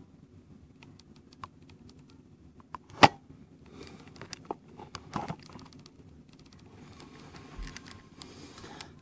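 Handling noise from the camera being moved and reframed: scattered clicks and knocks, one sharp knock about three seconds in, with bursts of rustling.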